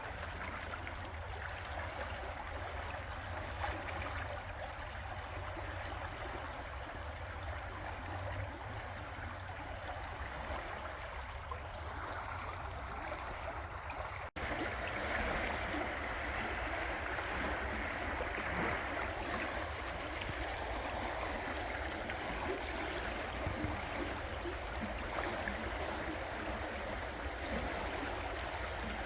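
River water rushing steadily. There is a brief dropout about halfway through, after which the rush is a little louder and brighter.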